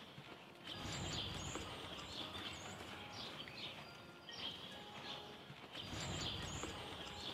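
Faint outdoor birdsong: small birds chirping and calling again and again, over a low rumble that swells about a second in and again around six seconds in.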